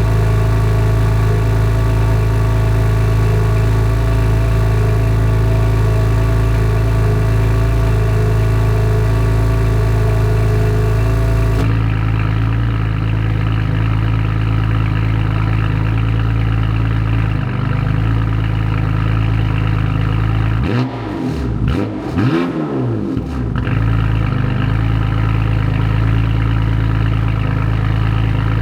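BMW S55 twin-turbo inline-six idling steadily after a cold start, heard through a titanium equal-length, single mid-pipe catback with valved rear muffler. The upper tone of the exhaust changes about twelve seconds in, and there is one short throttle blip around three quarters of the way through.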